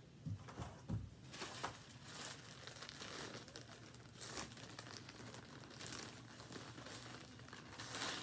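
Plastic poly mailer bag crinkling and rustling in irregular bursts as it is handled and pulled open, loudest near the end. A couple of thumps come in the first second.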